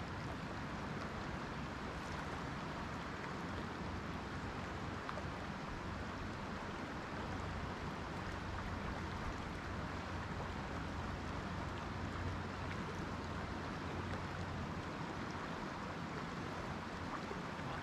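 Steady sound of a river's flowing water, an even wash with no distinct events.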